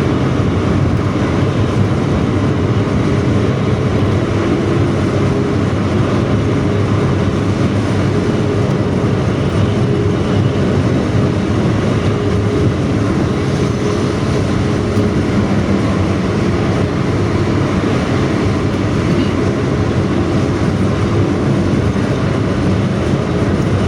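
Front-engined Hino AK bus running at speed, its 'ngorok' (snoring) exhaust giving a steady, rough drone.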